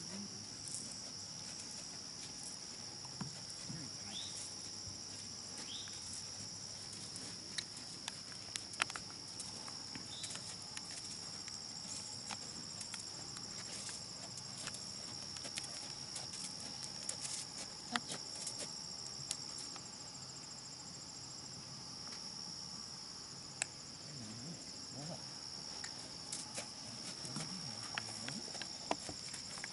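Crickets chirring steadily in a high, continuous chorus, with scattered soft hoof steps and a few sharp knocks from a horse walking on a sand arena.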